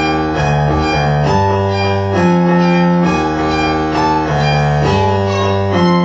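Modular synthesizer music: a looping sequence of sustained notes over a low bass line, the notes changing about every half second to a second, at a steady level.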